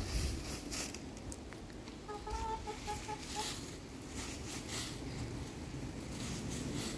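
A hen clucking, a quick run of short clucks about two seconds in, over the crackle of dry leaves being scratched through.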